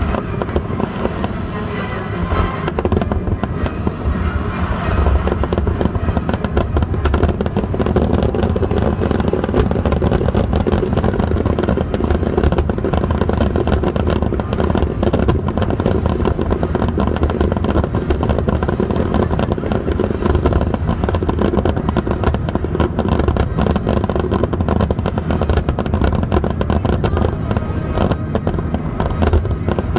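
Fireworks going off in a dense, continuous barrage of bangs and crackles with no pauses, over a deep rumble.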